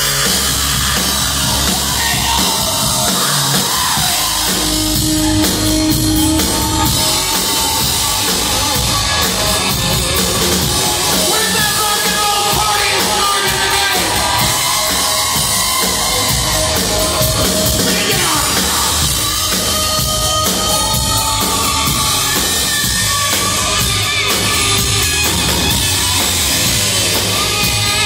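Live rock band playing loud and without a break: guitars over a drum kit.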